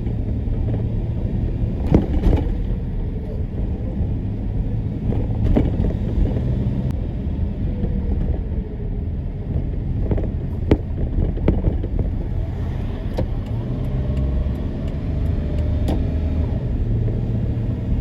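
Steady low rumble of a road vehicle running, with a few sharp knocks scattered through it.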